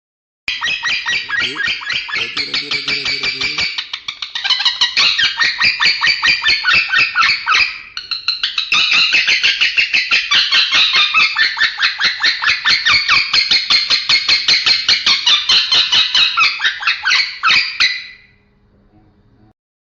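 Male lovebird singing a long run of rapid, evenly repeated chirps, about five a second, with a brief break about eight seconds in.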